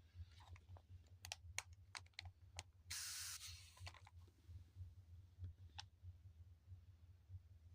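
A hand spray bottle misting water: one hiss lasting about a second, about three seconds in, after several faint clicks.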